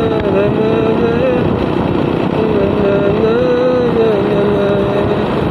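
Motorcycle engine running while riding along, its whine wavering up and down with the throttle over a steady rush of wind and road noise.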